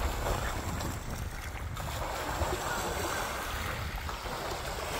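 Small waves washing up on a sandy beach, with steady wind buffeting the microphone.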